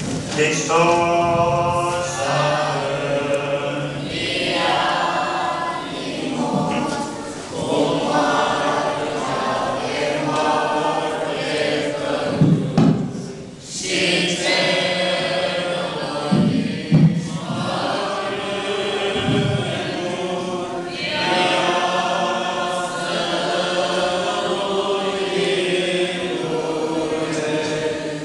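Several voices singing an unaccompanied Orthodox church chant, breaking off briefly about halfway before going on, with a few low thumps along the way.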